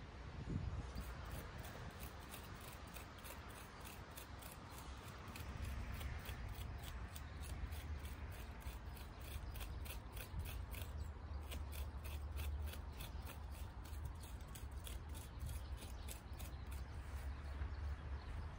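Rhythmic snipping of hand shears or clippers cutting weeds, about three snips a second, over a steady low rumble.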